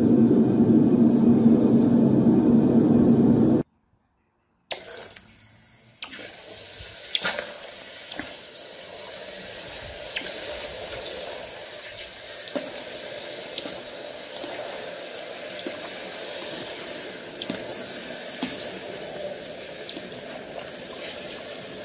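Molten copper poured from a crucible into a pot of water, sizzling and hissing steadily with scattered crackles and pops as it quenches. This is preceded by a loud, steady low roar that cuts off abruptly after a few seconds.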